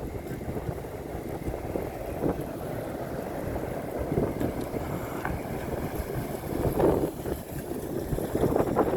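Strong gusty wind buffeting the microphone, a rumbling rush that swells with the gusts, most strongly near the end.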